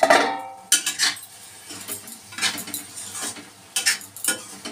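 Metal spatula scraping and clanking against a metal kadai as a cooking vegetable curry is stirred. A loud clatter comes right at the start, and sharp knocks come about a second in and again near the end.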